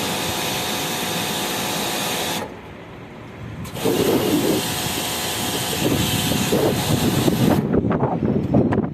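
A steady hiss of water spraying, most likely a hose being used to wash the air-conditioner's outdoor coil, cuts off about two and a half seconds in. After a short lull, an uneven low rumbling noise follows.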